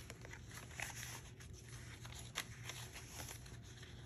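Faint rustling and soft taps of paper pages and lace being lifted and turned by hand in a junk journal, a few sharper rustles among them.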